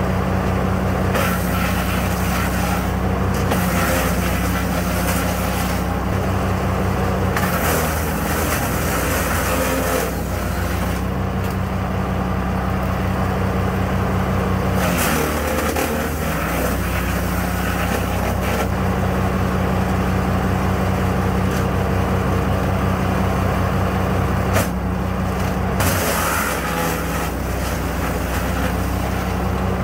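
Small 15 hp petrol wood chipper running steadily while branches are fed through, with stretches of harsh chipping noise lasting a few seconds each as the blades cut. About halfway through, the engine pitch sags briefly under load and then recovers.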